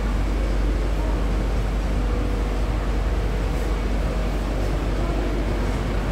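Steady low rumble and hum inside a Bangkok BTS Skytrain car.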